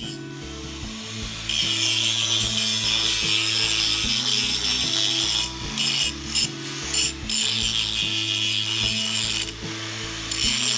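A handheld power tool working on steel, starting about a second and a half in with a harsh, rough noise that stops briefly a few times, over background music.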